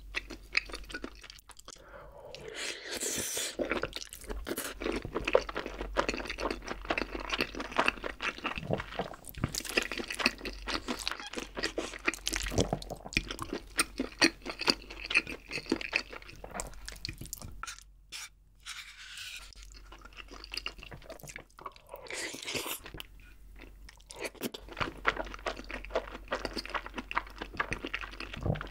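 Close-miked chewing of rosé jjimdak, braised chicken and glass noodles in a creamy sauce: a steady run of wet, clicky mouth sounds, with a quieter pause about two-thirds of the way through.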